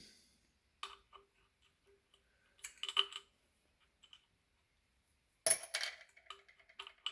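Metal parts being handled while a brake disc's screws are undone from an ebike hub motor: light clicks about a second in, a cluster of clinks around three seconds, and a louder metallic clank about five and a half seconds in.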